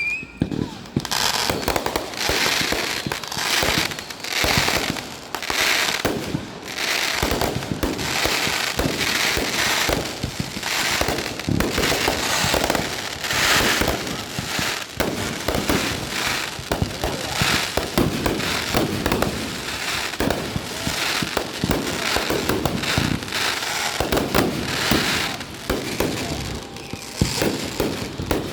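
Fireworks going off: a dense, unbroken run of rapid pops, bangs and crackles.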